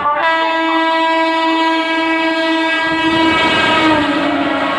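An express train's horn sounds one long blast of about three seconds, then a slightly lower note near the end, as the train runs through the station at speed with the steady rush and clatter of its passing coaches.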